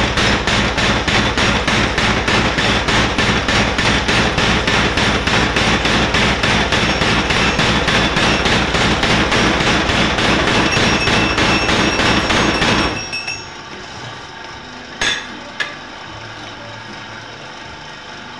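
Homemade power hammer pounding red-hot steel in a swage die with rapid, even blows, crimping it into a bell shape. The blows stop about 13 seconds in, leaving a quieter steady machine hum and two sharp metal clanks.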